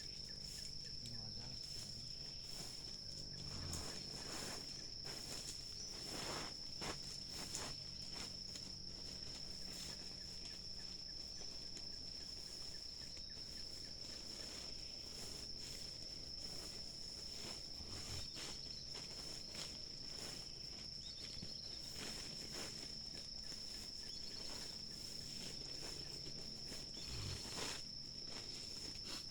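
Insects trilling without a break on one high, steady note, like crickets in a forest at night, with scattered faint rustles and knocks.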